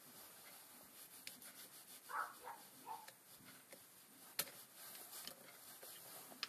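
Quiet handling of a steel splined hub seated in a tractor transmission input housing, turned by hand: a few light metal clicks, one sharper about four seconds in.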